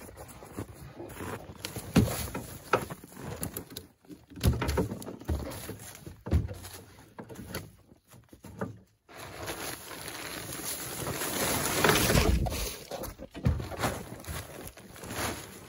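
Gear being handled at a loaded freight sled: a plastic tarp rustling and being pulled about, boots crunching in snow, and several sharp knocks. A longer rush of noise builds and peaks past the middle.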